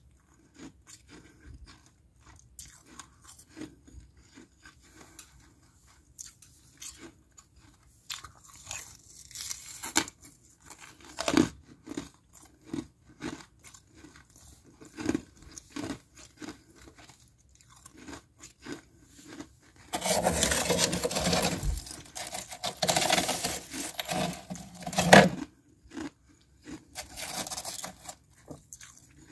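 Thin, flaky freezer frost being crunched and chewed, with irregular crisp crackles and a longer, louder run of dense crunching about two-thirds of the way through.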